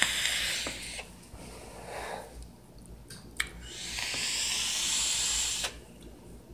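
Vaping on a rebuildable dripping atomizer: long airy hisses of drawing on it and blowing out vapor. A softer breath comes around two seconds in, then a single click, then a second hiss of about two seconds that stops sharply.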